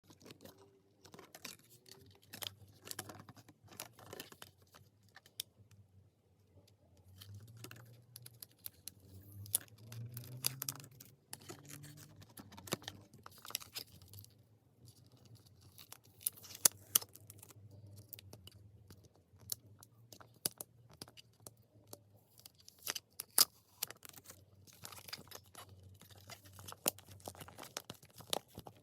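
Packaging being handled and torn open by hand: wrapper crinkling and tearing in irregular crackles and clicks, the sharpest in short clusters.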